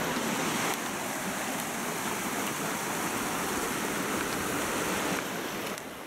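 Steady rushing of a mountain stream, a little quieter near the end.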